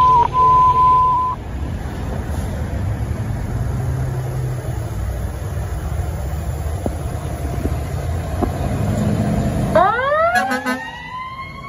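A steady radio alert tone for about the first second, then a fire engine's motor running low as the rig pulls out of the station. Near the end its siren winds up in a rising wail.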